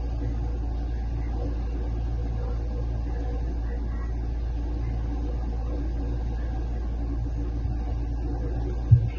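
Refrigerator running with a steady low hum. A sudden knock comes near the end.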